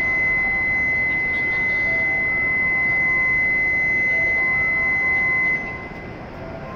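Station platform departure buzzer sounding one steady high tone that cuts off suddenly about five and a half seconds in: the warning that the shinkansen's doors are closing. Fainter short beeps sound beneath it.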